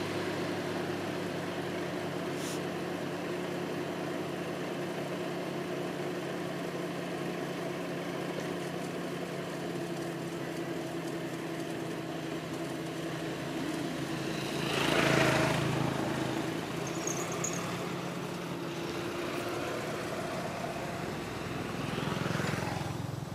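A small motorbike engine idling steadily. Another vehicle passes about fifteen seconds in, the loudest moment, and a second passes near the end.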